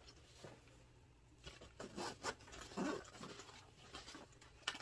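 Zipper on a small padded fabric drone carrying bag being pulled open in short scratchy pulls, with handling rustle of the bag and a sharp click near the end.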